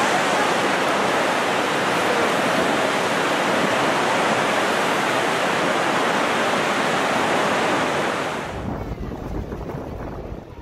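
Horseshoe Falls at Niagara: a loud, steady rushing of water pouring over the brink. About eight and a half seconds in it cuts off abruptly, leaving a quieter low rumble.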